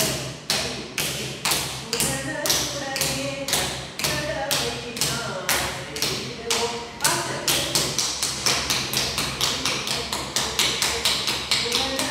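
Steady rhythmic tapping that keeps the beat for Bharatanatyam adavu practice, sharp evenly spaced strokes that double in speed about seven seconds in.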